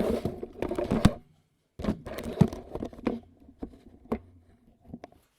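Rattling, clattering handling noise in two dense bursts, separated by a short gap, then a few separate clicks.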